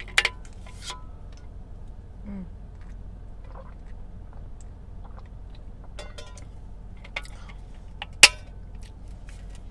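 Plastic flip lid of an insulated tumbler clicking open at the start, quiet drinking sounds as water is sipped, and the lid snapping shut with a sharp click near the end, the loudest sound.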